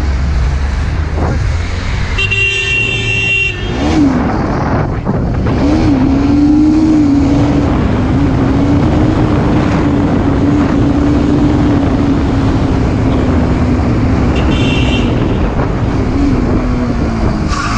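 A horn honks for about a second and a half, then the motorcycle's engine holds one steady high note at speed, easing down in pitch near the end. A second, shorter horn blast comes about three-quarters of the way through, over wind and road noise.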